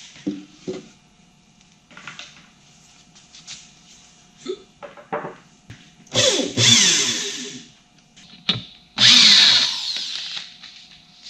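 Cordless drill driving screws into an MDF subwoofer box, in two bursts about six and nine seconds in, with short knocks of the panels being handled between them.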